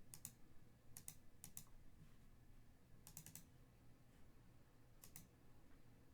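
Near silence with faint, scattered sharp clicks, some in quick pairs, about a dozen in all.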